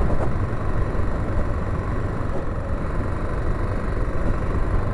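Honda XL600R's 589cc single-cylinder engine running at a steady pace while the bike rides over grass, with a low rumble.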